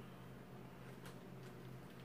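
Near silence: quiet room tone with a steady low hum and a few faint light clicks.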